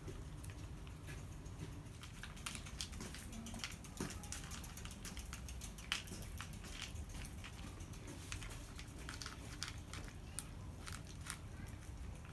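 Two cats eating cat food, with irregular crisp crunches and clicks of chewing.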